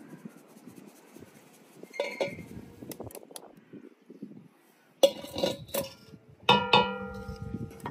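Steel sieve and metal pan clanking together in a few separate strikes, the last two loudest, the final one ringing on with a steady metallic tone.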